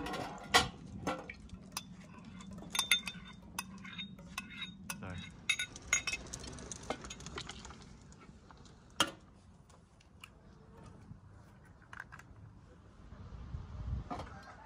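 Porcelain and metal dishes clinking as they are handled on a metal tray: a lid lifted from a china pot, a spoon tapping china, bowls set down. The clicks come at irregular intervals, with sharper knocks about half a second in and about nine seconds in.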